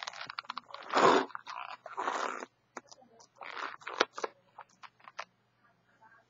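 Hands rubbing and squeezing a latex balloon: irregular scraping and crinkling rustles with small clicks, loudest about a second in and again around two seconds in.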